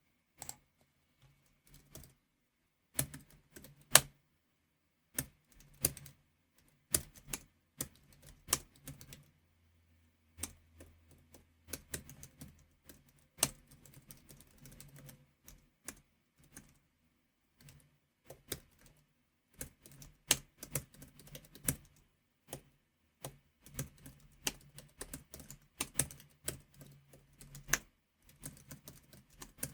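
Typing on a computer keyboard in irregular bursts of clacking keystrokes, with a few strokes struck much harder and louder than the rest.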